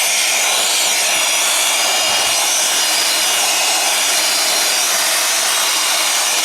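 Electric air blower running steadily at full speed with a high whine over a loud rushing hiss, blowing dust and dirt out of a CRT television's cabinet.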